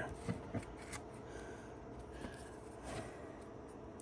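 Faint handling of trading cards: a few light taps in the first second, then quiet room tone with small scattered rustles.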